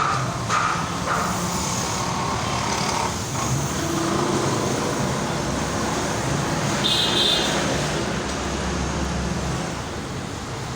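Steady road traffic noise with a low engine hum, and a brief high beep about seven seconds in.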